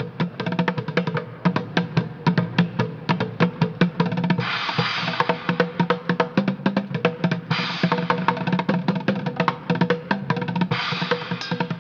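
Drum kit played fast with dense snare and bass-drum strokes, with cymbals crashing and washing through two stretches: about four and a half seconds in for three seconds, and again near the end.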